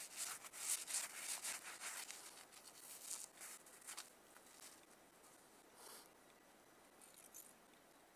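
Snow crunching and scraping in quick, irregular short strokes, dense for the first four seconds and then thinning to faint scuffs.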